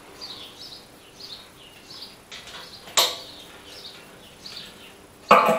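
Two sharp clicks of an air hose's quick coupler being handled and fitted to the compressor outlet, one about three seconds in and a louder one near the end. A bird chirps repeatedly in the background.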